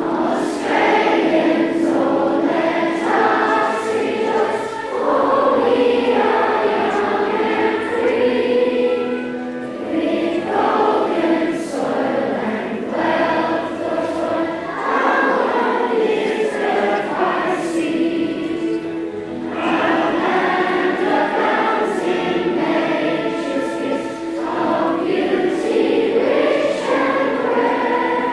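A choir singing in long, held phrases with brief breaths between them.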